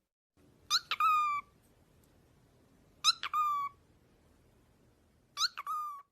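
A parrot giving three two-part calls about two and a half seconds apart, each a short rising note followed by a longer note that falls and then levels off.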